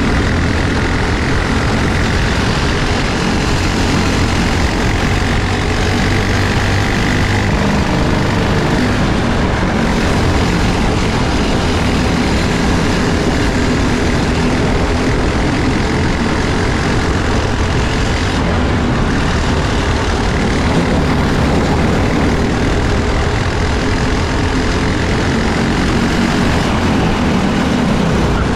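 Briggs & Stratton LO206 single-cylinder four-stroke kart engine running hard on track, its pitch rising and falling with the throttle through the corners and straights.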